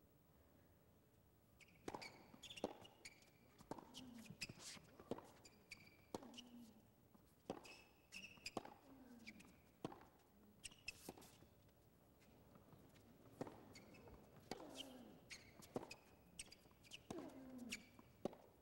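Faint tennis rally: rackets striking the ball and the ball bouncing on the court, a sharp hit every half-second to second, starting about two seconds in.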